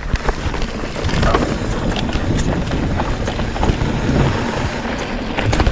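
Wind buffeting the microphone and tyres rumbling over a dirt trail as a mountain bike rolls downhill, with scattered short rattles and clicks.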